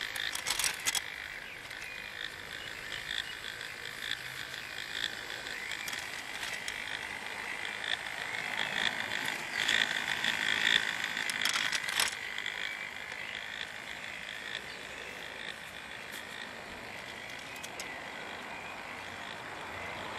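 Plastic K'nex gears and rods of a motor-driven kinetic sculpture turning, with a continuous clicking, rattling chatter of gear teeth. There are a few sharper clicks, and the chatter gets louder for a while about halfway through.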